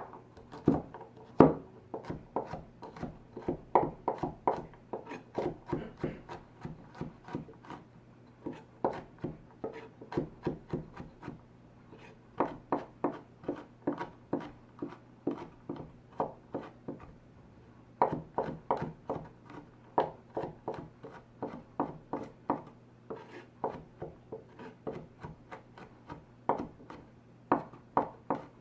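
A kitchen knife chopping on a cutting board: runs of even strokes at about three a second, broken by short pauses.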